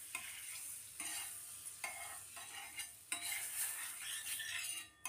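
Butter sizzling on a hot iron tawa while a metal spatula scrapes it across the pan in a few strokes about a second apart.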